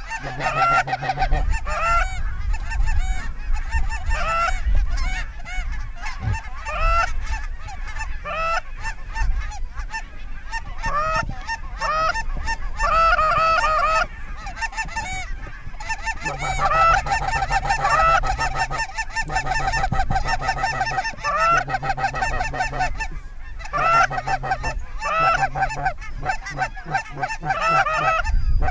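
Geese honking in quick, overlapping short honks, as a flock or as hunters' goose calls, with a low rumble underneath.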